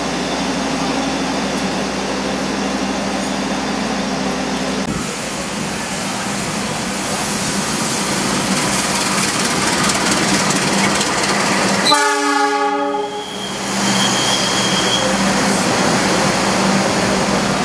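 Steady rumble and hiss of a train, with one short blast of a train horn about twelve seconds in.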